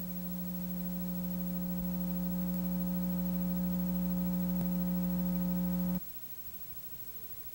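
Steady electrical buzz on a videotape's audio, a low hum with a stack of overtones, growing slightly louder and then cutting off suddenly about six seconds in.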